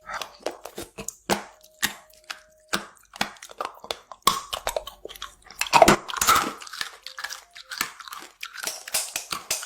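Close-miked chewing and crunching of something crisp, with many irregular sharp crackles as it is bitten and chewed, loudest about six seconds in.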